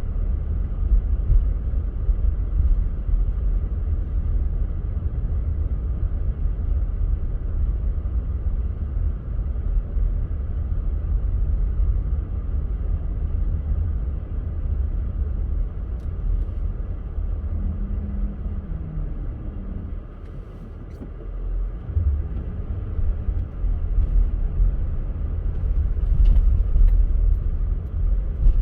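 Car driving on a snowy road: a steady low rumble of engine and tyres, dipping briefly about two-thirds of the way through.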